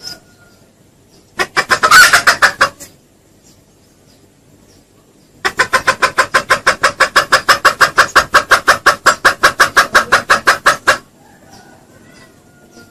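Junglefowl clucking in rapid even series, a call used to lure wild junglefowl. A short run of about a second and a half comes first, then after a pause a long run of about five and a half seconds at roughly six clucks a second.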